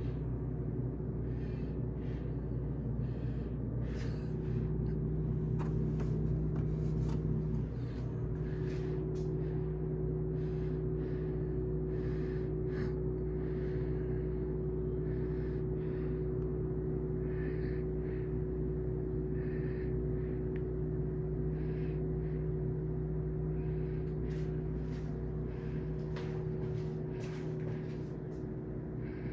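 Steady electrical hum of a refrigerated drink vending machine's cooling compressor and fans, with faint scattered clicks and rustles over it.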